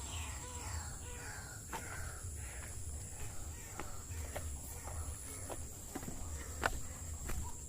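Insects chirring steadily at a high pitch, with a few descending calls in the first three seconds and scattered sharp clicks and knocks.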